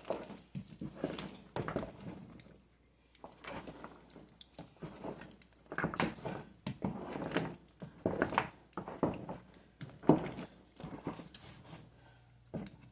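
Wooden spoon stirring a thick mixture of blended peanut and meat in a pot, with irregular scrapes and knocks against the pot.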